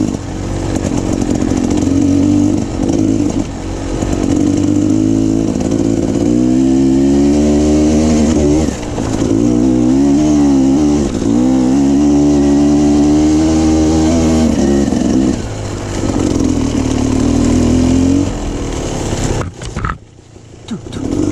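Dirt bike engine running hard on the trail, its pitch rising and falling again and again as the throttle is opened and closed. Near the end it drops away sharply for about a second, then picks up again.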